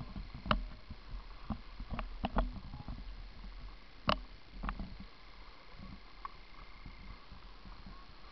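Skis sliding and scraping over packed snow, with scattered knocks and clatters of skis and poles, the loudest knock about four seconds in; quieter and steadier near the end.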